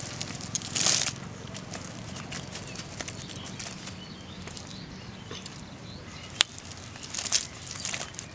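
Freshly caught fish flapping against a cast net and the grass in irregular short flurries, the strongest about a second in and again near the end, with one sharp tap a little after six seconds.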